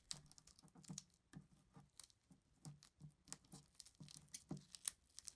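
Faint crinkling and irregular small crackles of a wad of blue painter's tape being pinched onto guitar pickup pole pieces and pulled away by gloved fingers, lifting out steel wool dust.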